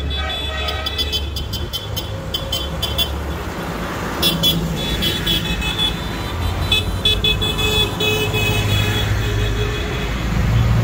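Modern diesel tractors driving slowly past with their engines running, louder after about six seconds and again near the end as one comes close. A horn toots in quick short bursts about a second in, again around four seconds in, and again around seven seconds in.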